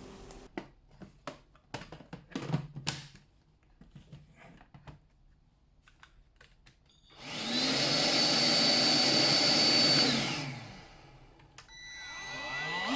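A few clicks and knocks from handling. Then a cordless stick vacuum cleaner switches on, runs steadily with a high whine for about three seconds and winds down. Near the end a vacuum motor starts up again with a rising whine.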